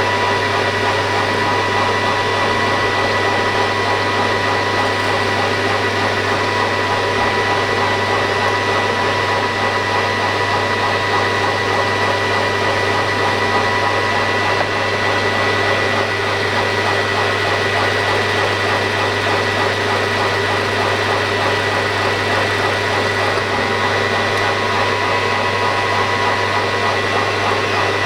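A grinder set up on a metal lathe running steadily: a constant motor whine with several fixed tones over a steady hiss, unchanging throughout.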